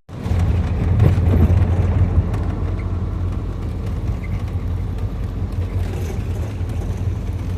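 Steady low rumble of a van driving, heard from inside the cabin.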